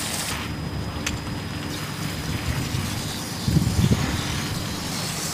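A steady low engine drone. A gust of wind buffets the microphone about three and a half seconds in.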